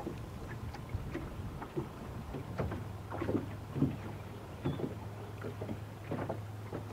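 Small river waves slapping irregularly against the hull of a small anchored jon boat, over a steady low hum.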